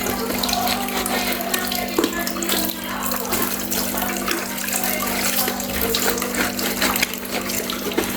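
Water running steadily from a tap, with scattered light clinks and knocks, as in washing dishes in a sink. A steady low hum runs beneath it.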